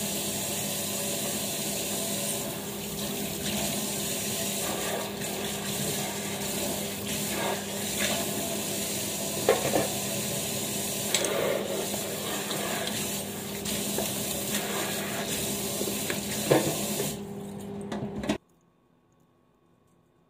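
Kitchen tap running steadily into a stainless steel sink, with a few sharp knocks from items handled in the sink. The water sound stops suddenly near the end.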